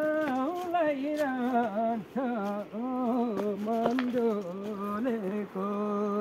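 A man singing a Nepali folk song in village style, unaccompanied, his voice gliding between notes and holding long notes near the end.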